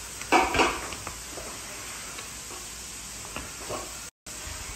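Raw onion slices being laid into a baking dish: two light knocks against the dish about half a second in, then a couple of fainter taps over low background hiss.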